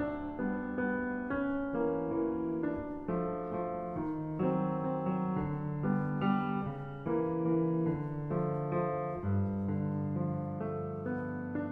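Solo grand piano playing a classical piece, with notes and chords struck about once or twice a second and left to ring under sustained bass notes.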